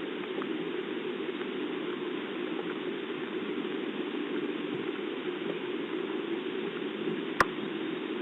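Steady rain hiss, picked up through a security camera's narrow-band microphone, with one sharp click about seven seconds in.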